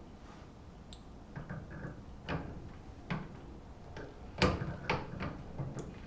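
Metal pliers clicking and tapping against the terminals and chassis of a microwave's high-voltage capacitor while they are used to short and discharge it: a handful of scattered sharp clicks, the loudest a little past halfway.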